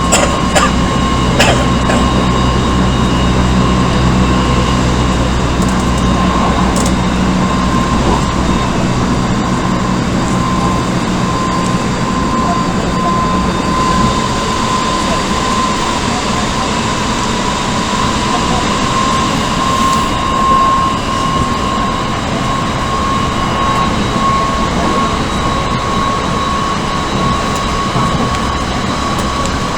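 Odakyu 1000 series electric train heard from inside a car while running at speed: steady wheel and rail rumble with a level whine from the running gear. A low drone underneath fades out about eight seconds in.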